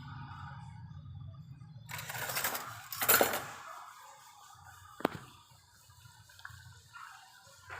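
A short rush of splashing water, loudest about three seconds in, over a low steady hum; a sharp knock follows about five seconds in.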